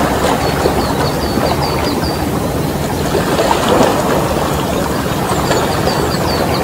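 Steady rushing noise of wind and sea water with a low hum beneath it. A bird calls twice, each time a quick run of short, high, falling chirps.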